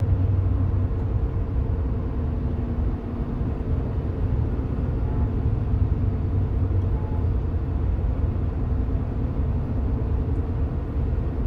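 Cabin noise of a moving car: a steady low rumble of engine and tyres on the road.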